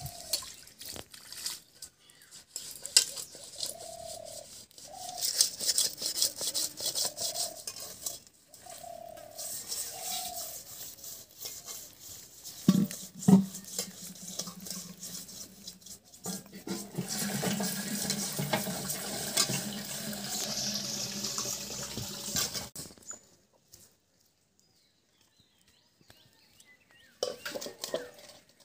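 Steel dishes clattering and water splashing as a metal basin is scrubbed and rinsed at a hand pump. Two loud metal clanks come just after the middle, followed by several seconds of water pouring steadily into the basin. It falls quiet near the end.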